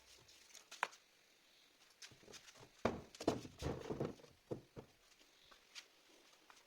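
Faint, scattered light knocks and clicks: a single one about a second in, then a quick cluster of them from about three to five seconds in.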